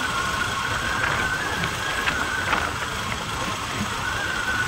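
Motorcycle engine running steadily while riding along a road, with road and wind noise.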